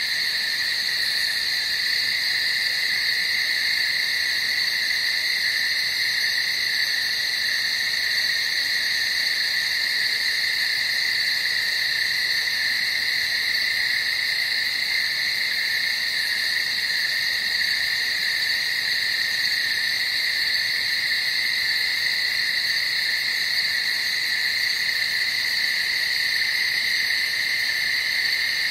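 Steady, high-pitched night-time chorus of calling animals, a dense wall of calls with no pauses or changes.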